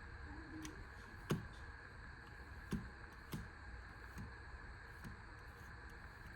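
A few scattered small clicks and light knocks, about six over several seconds, from the small carabiner flashlight being handled, over a faint steady hum. The sharpest click comes a little over a second in.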